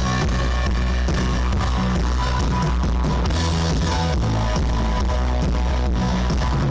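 A live band playing loud amplified music through a big open-air stage PA, with electric guitars and a deep, heavy bass.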